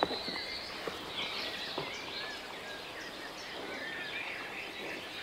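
Rural ambience with small birds chirping faintly on and off, a sharp click at the very start and a few softer clicks after it.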